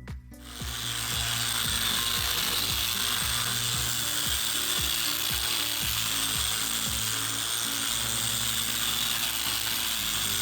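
Grinder spinning a hard purple non-woven abrasive disc over a rusty cast-iron table saw top, scrubbing off surface rust. It starts up within the first second, then runs steadily and loudly. Background music plays underneath.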